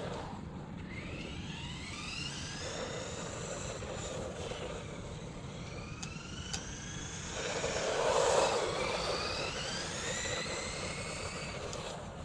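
Traxxas Rustler VXL RC stadium truck's brushless motor whining, rising in pitch again and again as the truck accelerates in several runs. A louder rushing noise about eight seconds in.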